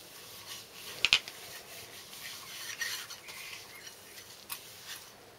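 Gloved hands rubbing oil onto a small engine piston and turning it, with soft rubbing and a few light metallic clicks; the sharpest click comes about a second in.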